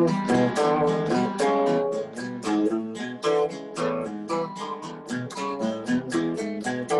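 Acoustic and electric guitar playing an instrumental passage together, chords strummed in a steady rhythm.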